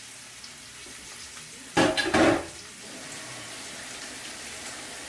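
Ribeye steaks searing in coconut oil in a hot pan, a steady frying sizzle, with a brief loud burst about two seconds in.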